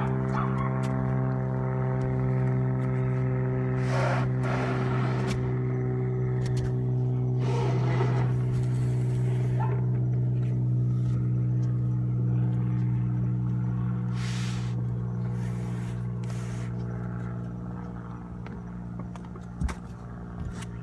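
A steady low engine-like hum, easing off near the end, with several rough scraping stretches over it as the rooftop air conditioner unit is slid across the RV roof, and a sharp knock near the end.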